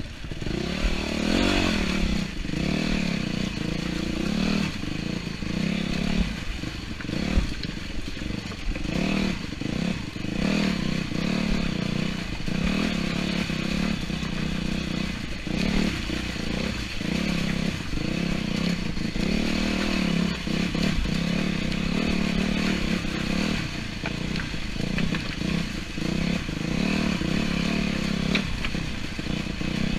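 A 250-class dirt bike's engine running under load on a race lap, the throttle opened and chopped again and again so the engine keeps rising and dropping every second or so. Short rattles and knocks from the bike come through over rough ground.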